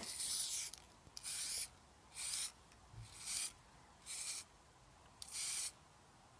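Aerosol spray-paint can hissing in about six short bursts, roughly one a second, as paint is sprayed onto paper.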